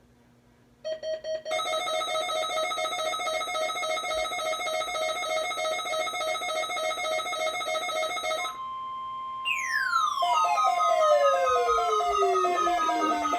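Weather alert radio receivers sounding their alarm for the NOAA Weather Radio Required Weekly Test. A rapidly pulsing electronic beep starts about a second in and runs for about seven seconds, followed briefly by the steady warning alarm tone. Near the end a long falling siren-like sweep plays over renewed pulsed beeping.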